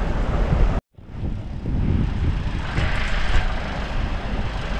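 A vehicle's low, steady rumble and wind on the microphone, heard from a rider sitting on the vehicle's roof. The sound cuts out for a moment about a second in, then carries on.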